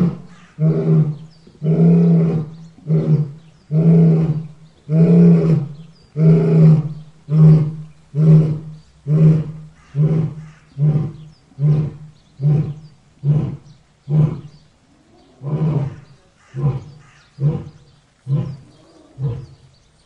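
A lion's roaring bout: a few long, loud roars followed by a steady run of shorter roars about one a second. The roars grow weaker toward the end, with a brief pause near the three-quarter mark.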